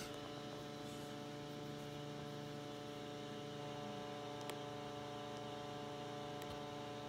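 Steady electrical hum made of several even tones held without change, with two faint clicks in the second half.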